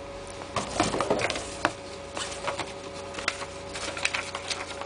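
Hands handling a folding knife: a scatter of light clicks, taps and rustles, busiest in the first second and a half.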